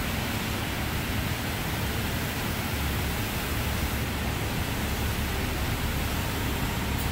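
Washworld Razor touchless car wash gantry spraying high-pressure water onto a vehicle: a steady, even hiss of spray.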